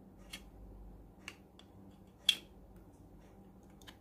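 A few small plastic clicks and taps as the Apple Watch charging cable's plug is pushed into a white power adapter, the sharpest click about two seconds in.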